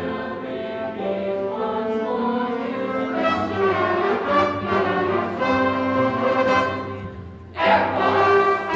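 A choir singing held notes with a band accompanying it, an upright bass among the instruments. The music dies down briefly, then swells suddenly and loudly about seven and a half seconds in.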